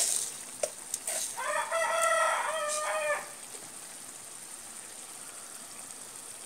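A rooster crows once, a single pitched call about two seconds long, over the steady sizzle of shallots and tomatoes frying in oil in a pan.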